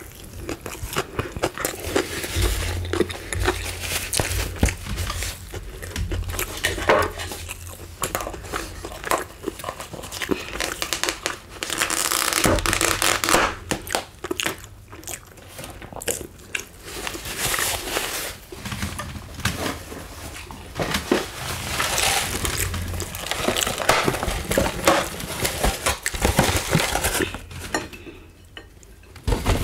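Close-miked eating sounds: chewing a fried chicken sandwich and fried chicken, with paper food wrappers and a cardboard box crinkling and rustling as they are handled. A dense run of small crackles and clicks, easing off briefly near the end.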